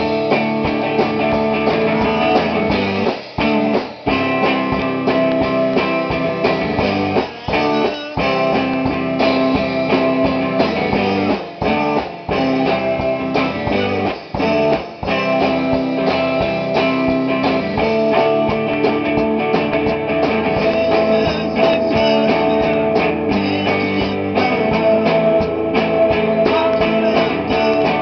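Band rehearsal music: guitar chords strummed loudly, with brief stops in the playing several times in the first half and no singing.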